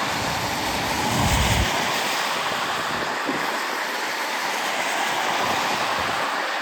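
A steady rushing hiss, with a low rumble underneath for the first second and a half.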